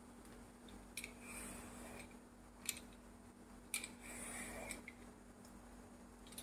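A Y-peeler scraping the skin off a bottle gourd in long strokes, faint: a sharp click as the blade bites at the start of a stroke, then a soft rasp as it runs along the gourd, four times.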